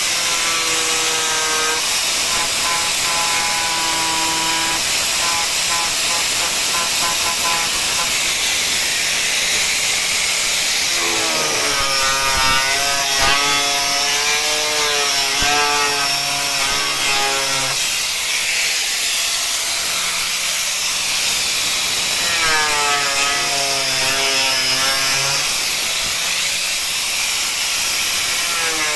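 Angle grinder with an abrasive cutting disc cutting open a washing machine's plastic tub so its drum bearings can be reached. It runs continuously with a hissing grind, and its whine wavers and bends in pitch at times as the disc is loaded.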